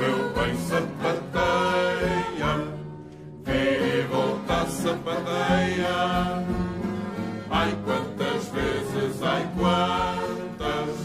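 Music with a group of voices singing together, dipping briefly about three seconds in before carrying on.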